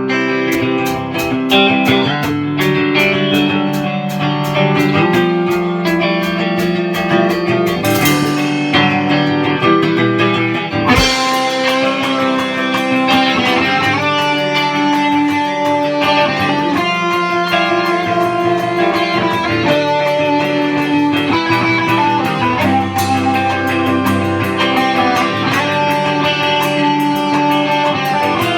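A guitar song played without singing: plucked guitar notes in a steady rhythm over low bass notes.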